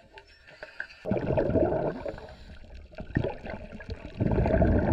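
Water bubbling and gurgling heard underwater, in three swells with quieter gaps between.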